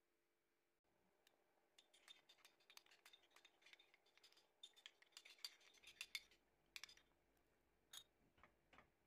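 Faint scraping and a fast, irregular run of small clicks from a wooden spatula stirring rice pudding against the sides and bottom of a stainless-steel pot; the clicking is busiest in the middle and thins out near the end.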